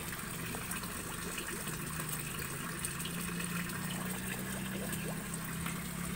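Water trickling and splashing around a cloth-wrapped PVC pipe elbow in a shallow concrete tank, with a steady low hum underneath.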